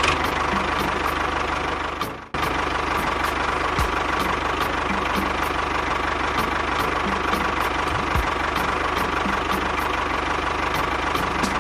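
Engine running steadily with a fast, even knock. The sound cuts out briefly about two seconds in, then carries on.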